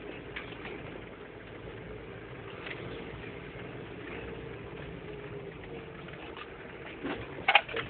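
Daihatsu Fourtrak 2.8 turbodiesel engine running steadily under light load, heard from inside the cab as the 4x4 crawls along a rough track. Near the end a few sharp knocks and rattles break in, louder than the engine.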